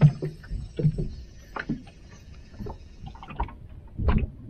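Irregular knocks and bumps of a small open boat on the sea, with water against the hull, while a hooked fish is fought on a bent rod and spinning reel. The loudest knocks come just after the start and about four seconds in.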